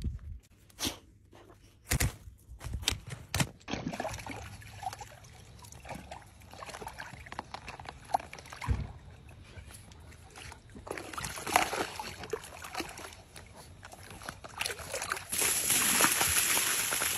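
Water from a garden hose running into a plastic tub that a dog sits in, sloshing and splashing around the dog. A few sharp thumps come first. About two seconds before the end the water becomes a louder, steady rush as the full tub spills over its edge.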